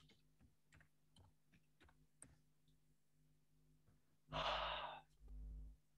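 Faint clicks of a computer keyboard as a web address is typed in, then a person's breath sighing out into the microphone about four seconds in, followed by a quieter low sound.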